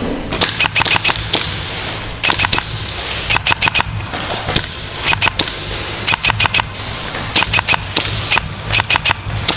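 Airsoft rifles firing in short rapid bursts of a few shots each, burst after burst.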